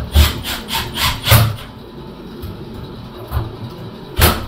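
A handheld tool worked in short, loud bursts against the shower valve's mounting: about five quick knocks or tool bursts in the first second and a half, then a couple more near the end.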